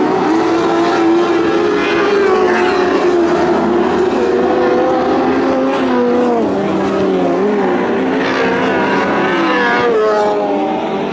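Several Lightning Sprint race car engines running hard together in a heat, their pitches rising and falling as the cars lap the track.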